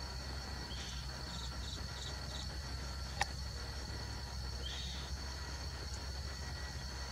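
Outdoor ambience: a steady high-pitched insect drone over a low steady hum, with a row of short chirps between about one and two and a half seconds, another chirp near five seconds, and a single sharp click about three seconds in.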